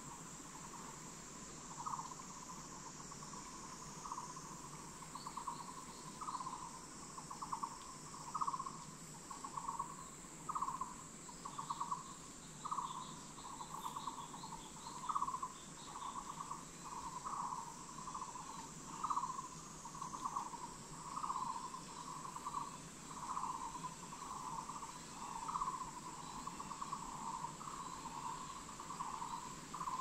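Forest insects calling: a buzzy, pulsed call repeating about once a second, over a steady high-pitched insect drone.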